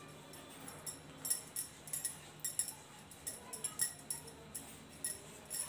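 Glass and metal bangles on a wrist clinking lightly in an irregular run of bright jingles, several a second, as the hand rubs ghee over a wooden rolling board.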